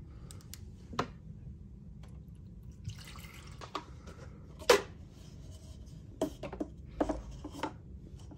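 Light plastic clicks and knocks as a Mr. Coffee single-serve coffee maker and paper cups are handled and a cup is set on the drip tray, with a soft rustle between about three and four seconds in. The loudest click comes a little before five seconds in.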